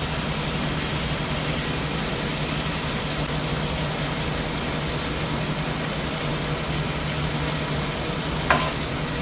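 Electric fan running steadily with a low hum and even rushing air. A single sharp knock near the end, like a knife striking a cutting board.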